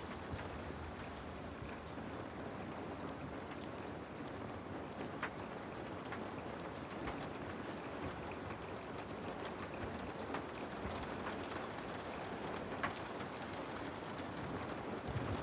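Steady rain with scattered individual drops ticking on a surface.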